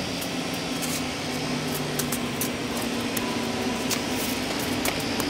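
A motor running steadily with a low drone and a hiss over it, and a few faint clicks scattered through.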